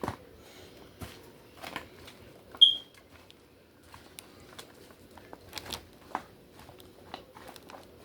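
Light rustling and scattered small taps of wet baby spinach and spring mix leaves being tossed in a pan, with one brief high-pitched squeak about two and a half seconds in, the loudest sound here.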